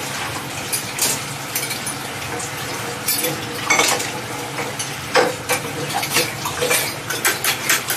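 Ripe jackfruit flesh being pulled apart by hand and chewed: wet, sticky clicks and crackles over a steady background hiss, coming thicker near the end.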